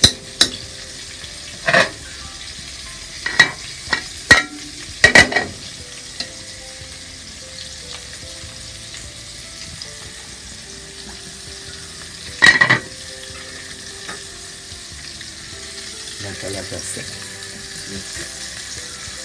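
Chicken frying in hot oil in a pan, a steady sizzle, with several sharp, ringing clanks of pots or utensils in the first few seconds and one more about twelve seconds in.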